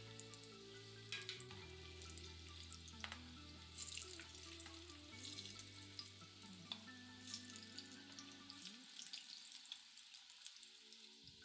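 Moong dal pakodas deep-frying in hot oil: a faint, steady sizzle with scattered crackles.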